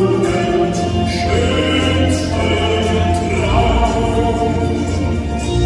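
Live performance of a German Fahrtenlied (hiking-song) medley: a man singing lead with women's backing voices, accompanied by grand piano and acoustic guitar.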